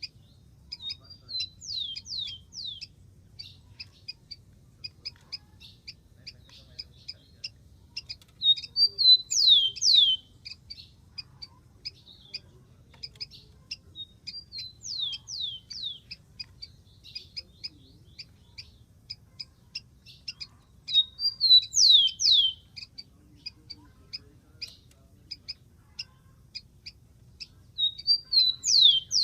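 Rufous-collared sparrow singing: a short phrase of high whistled notes ending in a few quick downward-slurred whistles, repeated five times about every six to seven seconds, with short high chips between the phrases.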